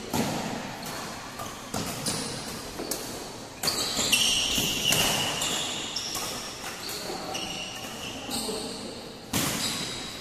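Badminton play on a hall court: several sharp racket hits on the shuttlecock a second or two apart, with shoe squeaks on the court surface and footfalls between them.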